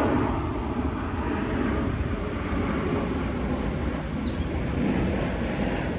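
Steady low rumble of outdoor background noise from vehicles, with wind on the microphone.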